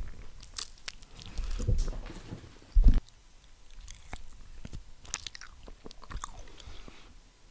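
Close-miked biting and chewing of a gummy finger-shaped candy, a run of short wet crackles and clicks made as a horror-film bite sound effect. There is one loud low thump about three seconds in.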